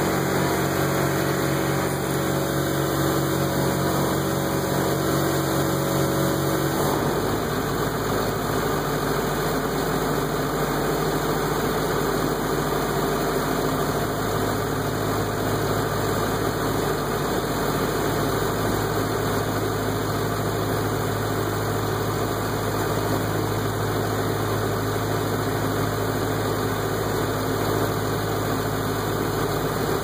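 Diesel engines of a tobacco harvester and a John Deere 7630 tractor running steadily side by side while the harvester's dump box is unloaded. About seven seconds in, the even engine hum turns rougher and noisier and stays so.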